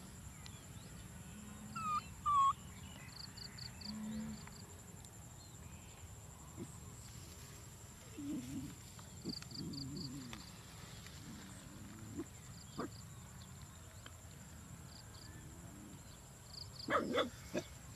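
Scattered short animal calls outdoors. A couple of quick high chirps come about two seconds in and some lower calls around the middle. A few sharp clicks come near the end, all over a steady high drone.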